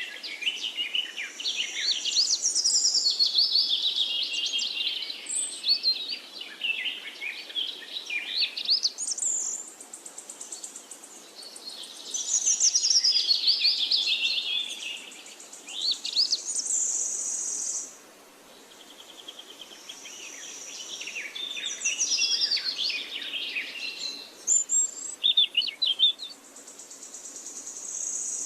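A songbird singing in repeated phrases of rapid chirping and warbling notes, the phrases separated by held, high buzzy notes.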